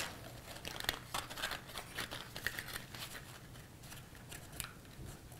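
Cardstock paper being handled: light, irregular rustles and small crinkles as fingers fold glued paper tabs and press them into place.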